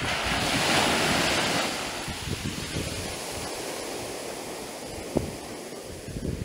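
Small surf breaking and washing up a black sand beach and over bare feet: a loud rush of foaming water about a second in, fading into a steadier fizz of foam. Wind rumbles on the microphone, with one brief knock a little past five seconds.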